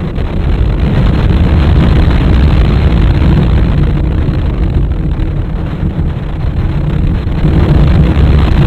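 Steel looping roller coaster train running along its track at speed, with heavy wind rush buffeting the microphone. Loud throughout, easing slightly about seven seconds in.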